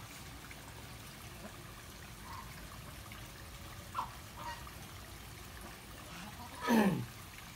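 Faint steady trickle of running water, with a few small ticks and, near the end, a short louder sound that falls steeply in pitch.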